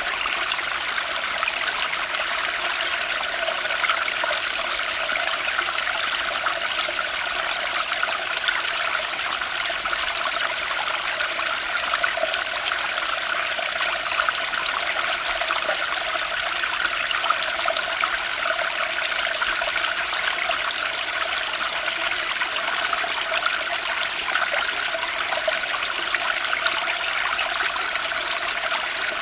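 Running water, a steady unbroken rush and trickle with little deep rumble.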